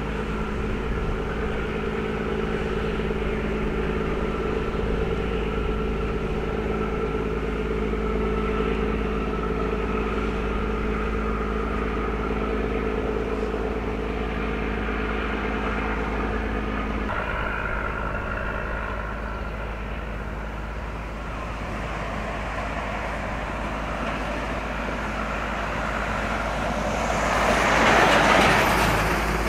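Steady road-traffic noise with a constant low rumble and an engine hum that cuts off partway through. Near the end a vehicle passes close by, rising and falling.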